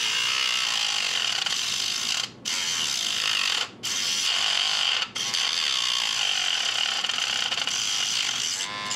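Handheld rotary tool with a cutting disc grinding into a plastic model locomotive shell, a steady high-pitched whine that breaks off briefly three times as the disc is lifted from the cut.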